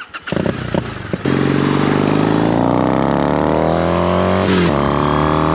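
Triumph T100 Bonneville's parallel-twin engine under hard acceleration: after about a second, a loud engine note comes in suddenly and climbs steadily in pitch for about three seconds, then drops back with an upshift near the end and holds steady.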